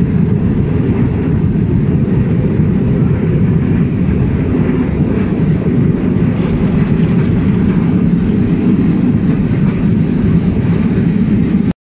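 Steady low rumble of a steam train's open passenger carriage running along the track, heard from a seat on board. The sound cuts out abruptly near the end.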